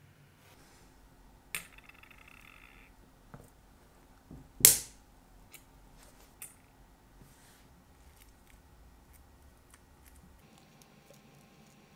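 Small metal clicks and ticks of steel tweezers and watch parts while a Rolex 600 hand-wind movement is taken apart and its mainspring barrel removed. There is a click with a short scrape about a second and a half in, and one sharp, loud metallic click a little before halfway, as a part is set down or snaps free.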